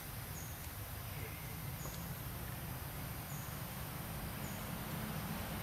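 Outdoor woodland ambience: a steady low rumble and hiss, with a short, high chirp repeating about every second and a half.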